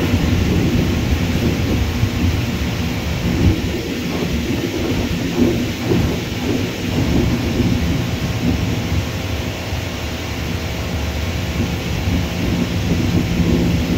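Low, uneven rumble of distant jet airliners on the runway.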